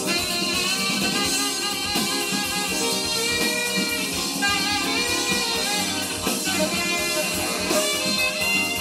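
Recorded music played from a vinyl LP on a Linn Axis turntable, heard through a hi-fi amplifier and loudspeakers, at a steady level.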